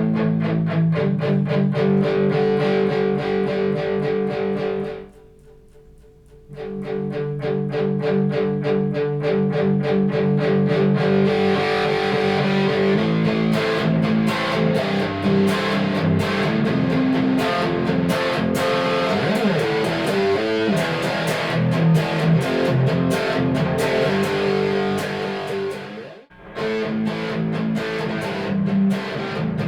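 Distorted electric guitar played through the first channel of a Diezel VH4-2 overdrive pedal, fast evenly picked riffs with the gain being varied. The playing stops briefly about five seconds in and again near the end.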